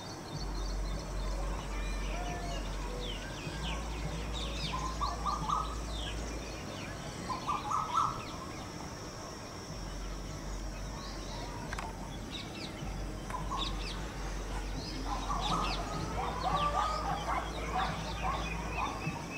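Outdoor ambience with small birds chirping in short, scattered calls and bunches of quick notes, over a low rumble that comes and goes.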